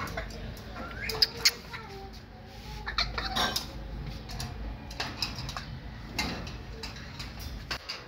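Young African grey parrot giving a few short squeaky calls among scattered sharp clicks and taps, the loudest two clicks close together about a second and a half in.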